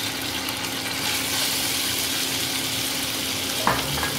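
Marinated chicken pieces sizzling as they are tipped into hot oil in a frying pan, a steady hiss that grows stronger about a second in. A single sharp knock near the end.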